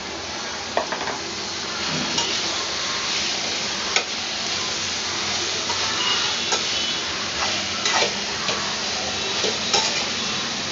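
Onions and drumstick pieces sizzling steadily in hot oil in a frying pan, with a steel slotted spatula scraping and clicking against the pan now and then as they are stirred.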